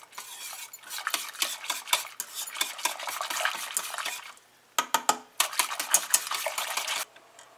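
Metal spoon stirring thick split-pea dal in a stainless steel pot, with rapid scraping and clinking against the pot's sides and bottom. It stops briefly a little past halfway, resumes, then stops about a second before the end.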